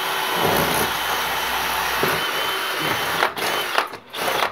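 Power drill with a 6 mm bit boring overhead into an old plaster ceiling. It runs steadily for about three seconds, then cuts in and out in short bursts before stopping. The bit meets nothing solid behind the plaster: the cavity above is empty.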